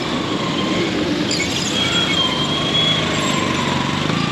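Road traffic running past: vehicle engines and tyres as a steady wash of noise, with a thin high squeal lasting about a second near the middle.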